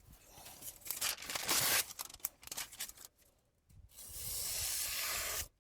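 A steel knife edge is scraped in strokes across the wet 1000-grit side of a Solicut combination whetstone. The strokes are rasping, in irregular bursts, then a steady run from about four seconds in that stops abruptly near the end.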